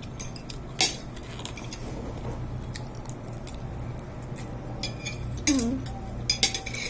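Cutlery clicking and clinking against dishes and a glass during eating: scattered sharp clicks, the loudest a little under a second in.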